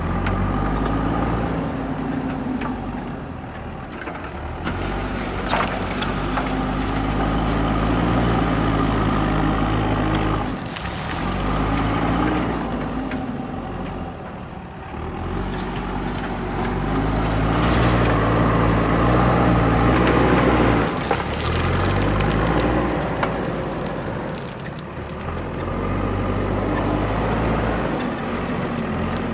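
JCB backhoe loader's diesel engine working, revving up and dropping back again about five times as the hydraulics are worked.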